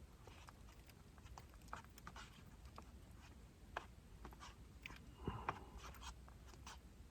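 Quiet small-space room tone with faint scattered clicks and light knocks of small items being handled, one sharper click about four seconds in and a short cluster of knocks a little after five seconds.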